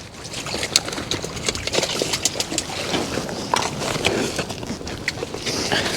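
Fishing gear being handled at a weigh-in: irregular clicks, taps and rustling over a steady hiss.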